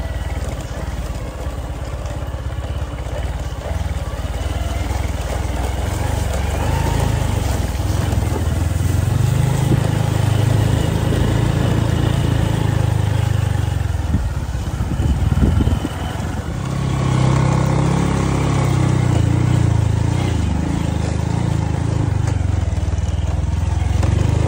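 Low, steady rumble of a ride on a small motorcycle: the engine running with wind buffeting the microphone, swelling and easing irregularly, with a short patch of bumps and thumps about two-thirds of the way through.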